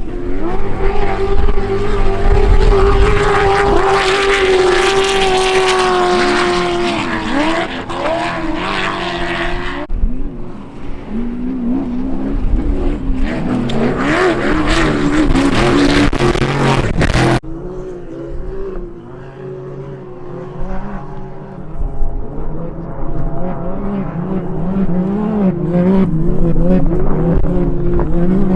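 Off-road race vehicles' engines running hard, in three stretches that change abruptly about ten and seventeen seconds in: first a steady, slowly falling engine note, then engines revving up and down with the throttle.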